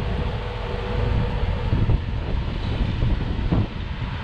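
Rock crawler's engine running under load as the rig climbs a rock ledge, with a couple of brief knocks about two and three and a half seconds in.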